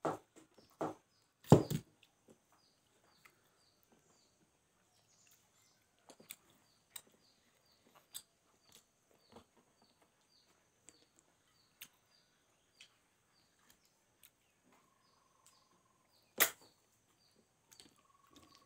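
Close-up eating sounds of a person eating rice and curry by hand: wet mouth smacks and chewing clicks, loudest near the start and again about 16 seconds in. A faint high chirp repeats about two to three times a second behind them.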